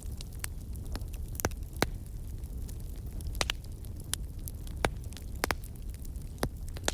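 Log fire crackling, with irregular sharp pops and snaps over a steady low rumble of flame.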